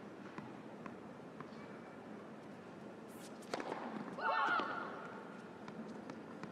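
A tennis ball bounced a few times on a hard court, then the crack of a racket striking a serve about three and a half seconds in, followed at once by a short loud shout, the loudest sound here.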